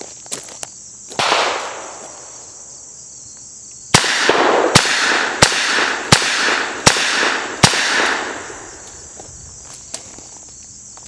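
Webley MK VI revolver firing .455 Webley cartridges: six shots in a steady string about 0.7 s apart, each with an echoing tail, beginning about four seconds in. A single sharp noise with a fading tail comes about a second in.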